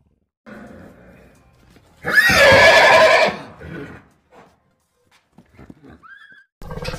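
Horse neighing: one loud whinny about two seconds in, lasting about a second, with a few fainter short sounds around it.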